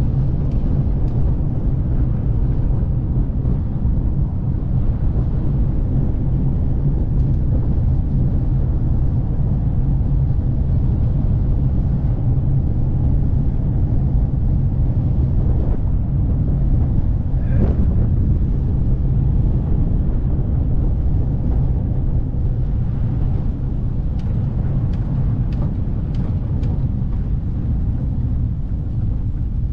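Velomobile riding along a road: a steady low rumble of tyre and road noise, with wind on the microphone.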